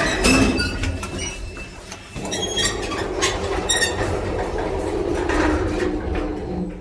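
KMZ passenger lift running in its shaft, with a steady rumble and repeated metallic clanks, knocks and squeaks. This is the knocking in the shaft that the title points to.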